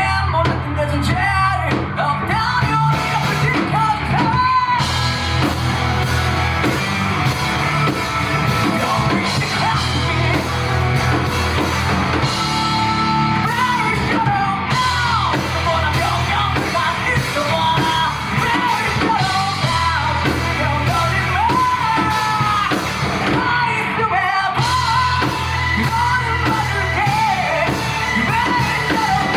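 Live rock band performing: a male vocalist sings, at times yelling, over electric guitar, bass, drums and keyboard.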